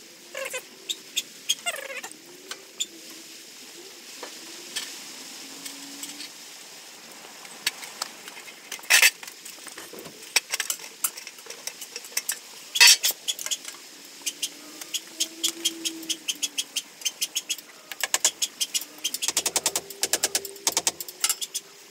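Hand tools clinking and knocking against the steel axle hub and braking unit as it is dismantled, with two sharper metal clanks in the middle and a fast run of clicks near the end.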